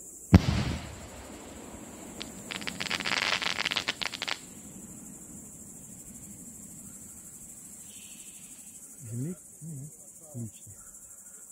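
Firework aerial shell bursting with one loud bang about half a second in, followed about two seconds later by a dense crackling that lasts about two seconds. Crickets chirp steadily throughout.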